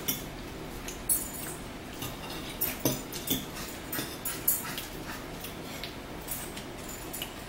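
Eating at a table: a fork scraping and tapping on a plate, with mouth sounds of chewing, heard as a scattered run of short sharp clicks and smacks.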